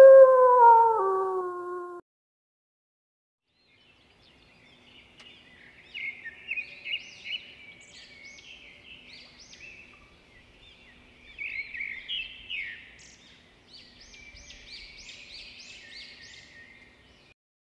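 A long howl, falling in pitch, ends about two seconds in. After a short silence a yellow warbler sings rapid, high chirping phrases, again and again.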